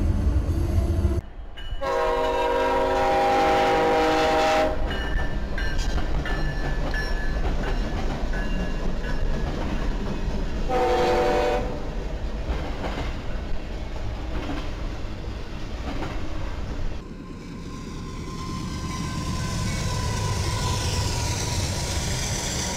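Freight diesel locomotive's multi-chime air horn: one long blast of about three seconds, then a short blast about nine seconds later, over the steady rumble of the train rolling by. Near the end, freight cars roll past with rail and wheel noise building.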